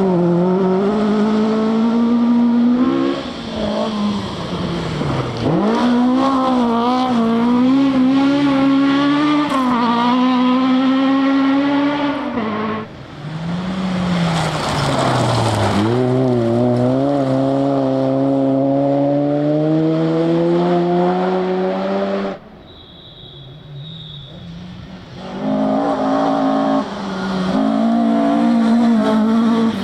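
Rally cars at full throttle on gravel forest stages, engines screaming up through the revs and dropping back on each gear change and lift, one car after another. About halfway through a car rushes past in a wash of noise, and about three quarters through the engines drop away briefly before the next car comes in.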